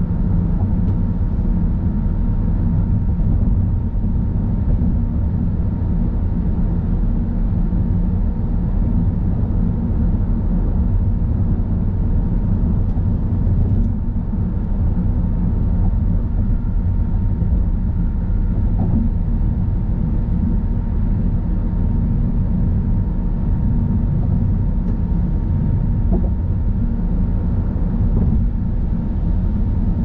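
A car cruising on a freeway: a steady, even road and tyre rumble with a faint steady tone running through it.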